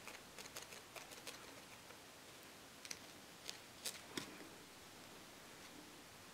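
Faint handling sounds of fingers pinching and wrapping wool on a foam felting pad: a scatter of light ticks and rustles, clustered in the first second with a few more around three to four seconds in.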